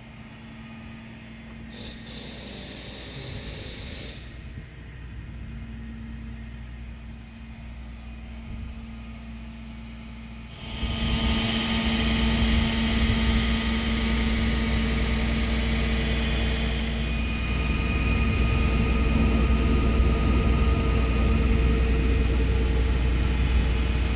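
A vehicle engine running steadily at idle. It becomes much louder about ten seconds in. There is a short hiss a few seconds before that.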